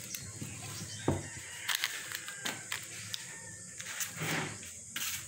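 Scattered light knocks and clicks of things being handled and moved about, with one louder thump about a second in.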